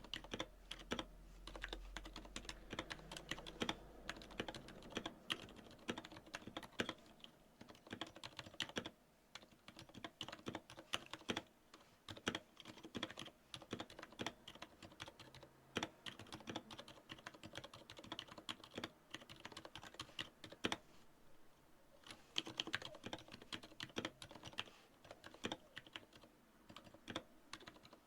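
Typing on an Anne Pro 2 mechanical keyboard fitted with unlubricated Aliaz silent tactile switches: soft, fairly quiet key presses in quick irregular runs with short pauses. The owner notes the switches still ping, for want of lube.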